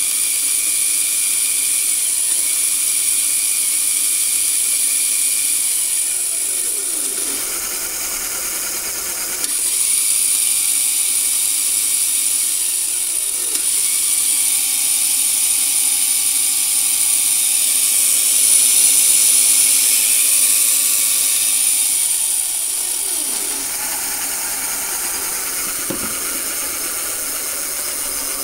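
A 36 V 800 W electric dirt-bike motor, overvolted on a 60 V battery pack, spins the lifted rear wheel at speed through a chain and 96-tooth sprocket. There is a high whine and a chain rattle. The speed sags and picks up again a few times, loudest about two-thirds of the way in.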